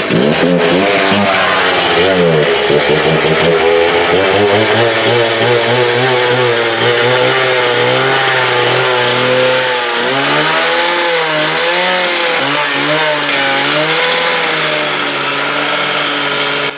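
Handheld angle grinder cutting steel, its motor pitch repeatedly sagging and recovering as the wheel bites, with a grinding hiss that grows stronger about ten seconds in.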